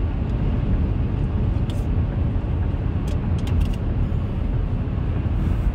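Steady low rumble of a car's cabin with the engine running, with a few faint clicks over it.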